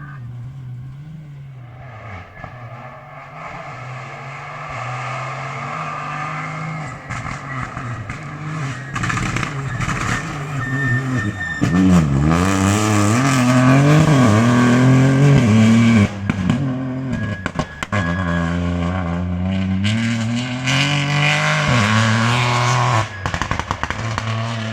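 Rally car engine at racing speed on a stage, growing louder as it comes nearer. About halfway it is loudest, with revs rising and falling quickly through gear changes and lifts. It then holds a high note and drops away near the end.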